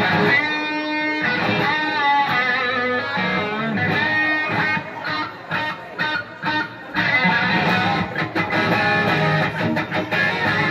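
Electric guitar playing a rock riff, with bent notes and short breaks between phrases.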